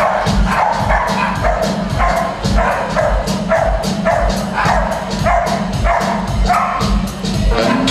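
Upbeat show music with a steady quick beat and short repeated notes.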